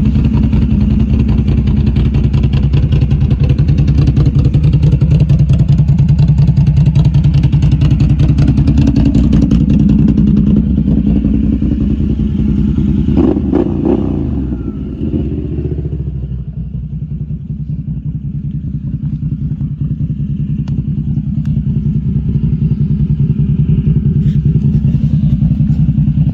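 Can-Am Outlander XMR 1000 ATV's V-twin engine running. It eases off about halfway through, then grows louder again toward the end.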